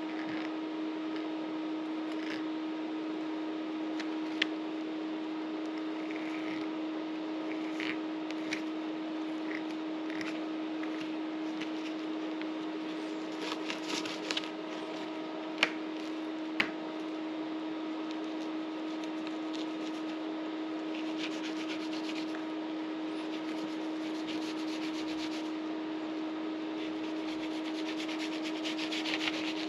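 A fillet knife cutting and scraping along fish being cleaned, in raspy stretches with a few sharp taps on the cutting surface, over a steady low hum.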